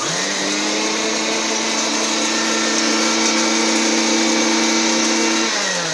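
Electric mixer grinder running with its steel jar full of whole spices, grinding them to a coarse powder: a steady high motor whine with a grinding hiss. Near the end it is switched off and its pitch falls as the motor spins down.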